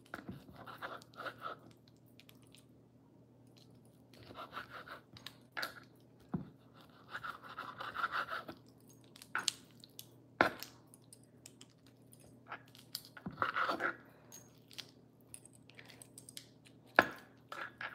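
A dull chef's knife sawing through raw beef on a wooden cutting board: short scraping strokes, with a few sharp knocks of the blade hitting the board.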